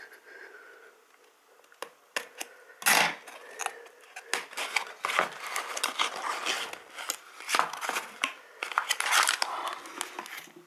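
Small cardboard shipping box being opened by hand: the tape torn off and the flaps pulled open, the cardboard scraping and rustling. There is a sharp knock about three seconds in.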